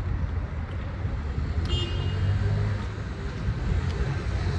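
Steady low rumble of street traffic, with a brief high tone about two seconds in.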